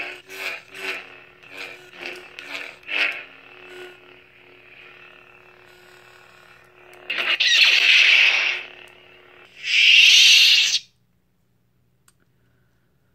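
Crystal Focus v9 lightsaber soundboard playing its Graflex 4 font through a 28mm bass speaker. A steady hum swells in short bursts as the hilt is turned. Two loud hissing bursts come about seven and ten seconds in.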